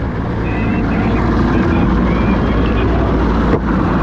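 Fishing boat's outboard motor running steadily at trolling speed, a low drone mixed with the rush of water and wind. The sound breaks off abruptly and changes character about three and a half seconds in.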